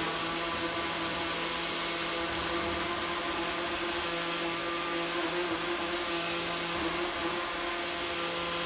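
Countertop blender running steadily at one constant pitch as it blends a drink.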